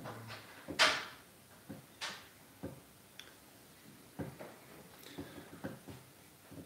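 A person's sharp, hissing breaths with soft knocks and rustles from moving arms and clothing. The loudest breath comes about a second in, another at two seconds, with smaller knocks scattered after.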